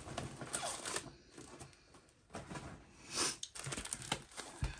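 Clear plastic packaging of stamp sets rustling and crinkling as it is handled, with a louder rustle about three seconds in and a few soft taps.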